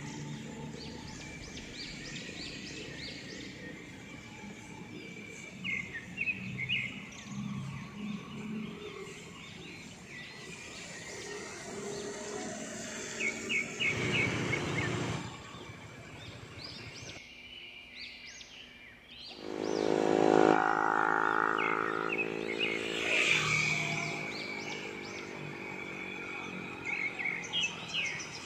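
Outdoor street ambience with short series of bird chirps recurring throughout. A passing motor vehicle's engine note rises and then fades from about twenty seconds in, and is the loudest sound.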